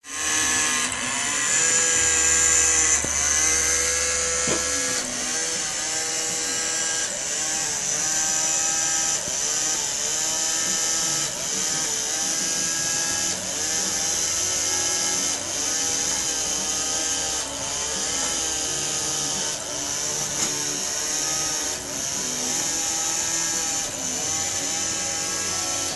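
Small electric motor running continuously, driving the wooden gears of a wooden pendulum clock's transmission unit for testing. A steady high whine and whir with wavering tones, and a light regular click about once a second.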